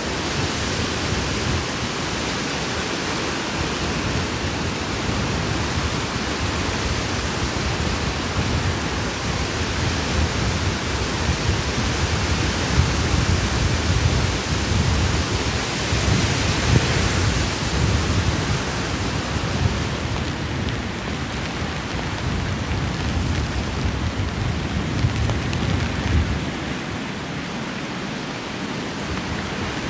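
Steady rain falling hard, with a deep low rumble underneath that surges and eases, dropping away near the end.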